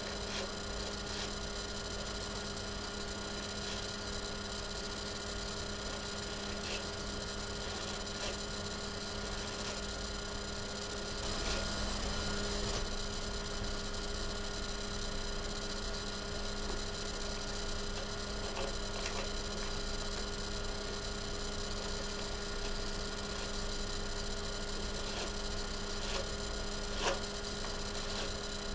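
Steady electrical hum: several fixed tones over an even noise floor, unchanging throughout, with a few faint clicks now and then, the clearest one near the end.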